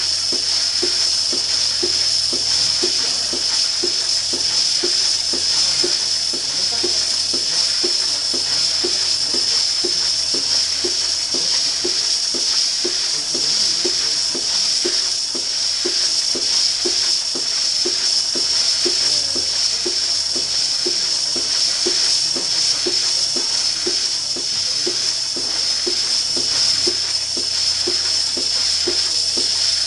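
Lely Astronaut 4 milking robot milking a cow: a steady high vacuum hiss with an even, rhythmic pulsing of the pulsation system in the teat-cup hoses.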